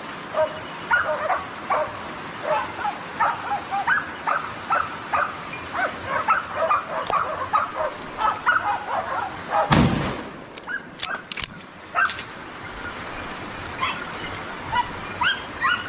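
Hunting dogs giving tongue in quick, repeated high yelps, the sound of a pack baying on wild boar. About ten seconds in there is a single loud bang, followed by a few sharp clicks and a short lull before the yelping picks up again near the end.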